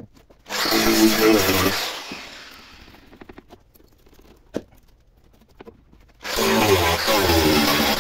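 Angle grinder cutting rusted sheet metal out of a car's wheel arch in two short bursts, one about half a second in and one near the end, the disc winding down after each. A few light knocks of metal between the bursts.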